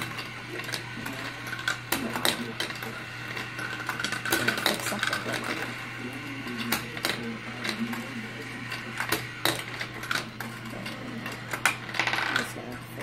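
Steel marbles clicking and clattering at irregular moments as they roll and drop through a plastic marble run, over a steady low hum.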